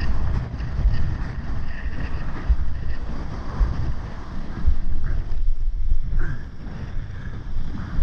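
Strong gusty wind, around 30 to 40 knots, buffeting the microphone in a loud rumble, with surf and whitewater washing and splashing around. The sound briefly turns dull about five and a half seconds in.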